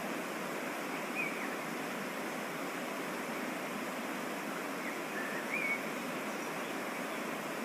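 Waterfall and mountain stream water rushing steadily. Short high whistled notes come through about a second in and again around five seconds.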